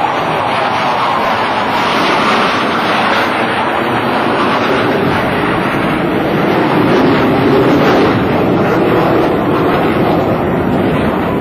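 Loud, steady jet noise from Boeing F/A-18 Hornets flying overhead, the twin turbofan engines at display power. The pitch falls during the first couple of seconds as a jet passes.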